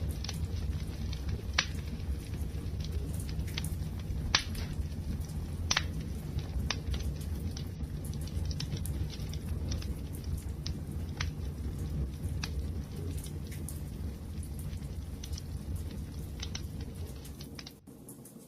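Wood fire crackling, with irregular sharp pops over a steady low rumble of burning. The sound briefly drops away just before the end.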